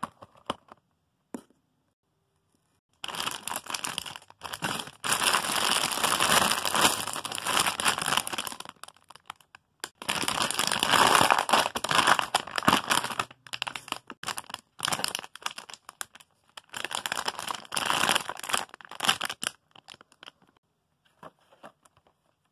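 Plastic packaging crinkling and crackling as packaged squishy toys are handled, in three long stretches with short pauses and scattered crackles between them.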